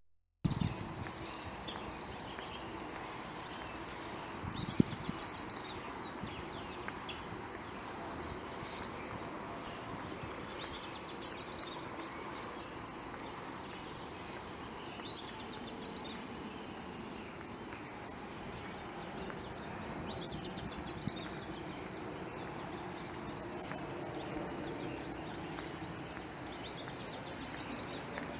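Songbirds singing, one repeating a short trilled phrase every few seconds while others give higher chirps, over steady background noise. A single sharp click about five seconds in.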